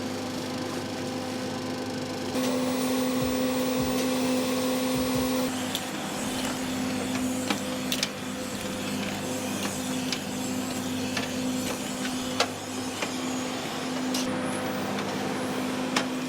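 Steady machine hum, a fan or motor running at constant speed, with a few sharp clicks scattered through it; it steps up in level a couple of seconds in.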